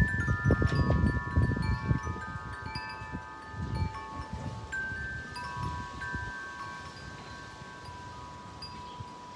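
Wind chimes ringing, with a cluster of tones struck near the start that ring on and slowly fade and a few more struck about five seconds in. Low rumbling bumps come under them in the first four seconds.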